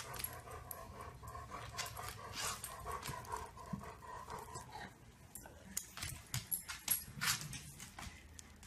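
Quiet sounds of a small dog, with light rustling of a blanket and a plush toy being handled.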